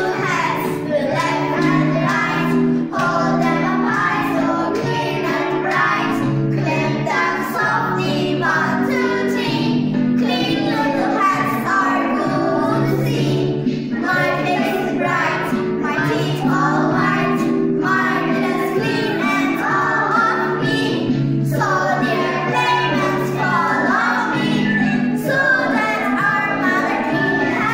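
A small group of young girls singing an English-language song together, over held low accompaniment chords that change every couple of seconds.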